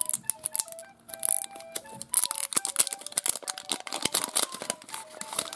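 Plastic wrapping crinkling and tearing as a layer is peeled off an LOL Surprise ball, in many quick crackles and rustles, over light background music.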